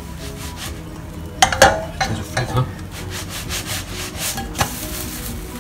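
Omelette sliding and scraping in a non-stick wok as the pan is shaken over the hob, a run of irregular rasping scrapes starting about a second and a half in and stopping near the end.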